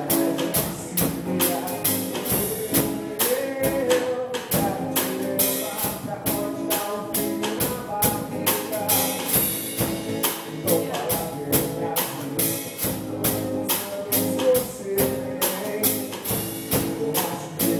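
A band playing an upbeat song, with even percussion strokes about four times a second over pitched melody and chord lines.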